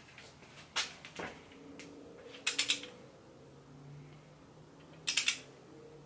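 Click-type torque wrench clicking as RB26 cylinder head nuts are torqued down on the second pass at 70 ft-lb. There are single sharp clicks near the start, then quick groups of about three clicks at about two and a half and five seconds in.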